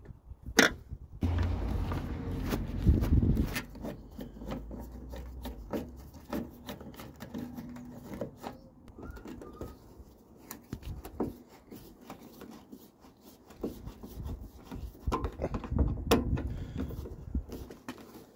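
Hand screwdriver turning the screws of a plastic door-mirror base plate on a car door, with scattered small clicks and taps of metal and plastic. A low rumble runs through the first few seconds and comes back near the end.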